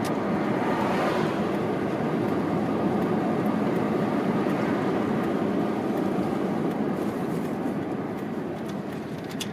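Steady road and engine noise of a car driving, heard from inside the car, easing a little near the end.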